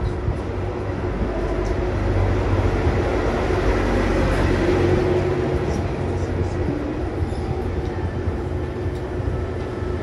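A low rumble from a passing vehicle, swelling to its loudest about halfway through and then easing off, over a steady hum.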